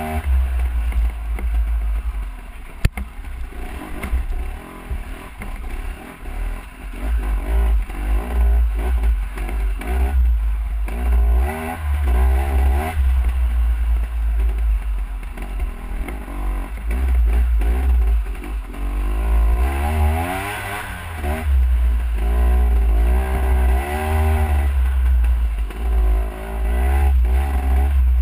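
Dirt bike engine revving up and dropping off again and again as it is ridden hard along a trail, under heavy low wind rumble on the microphone. Loose rattles and knocks from the bike, with one sharp knock about three seconds in.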